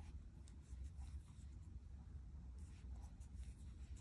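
Faint scratching and rustling of a crochet hook drawing cotton yarn through single crochet stitches, with a few soft ticks, over a low steady hum.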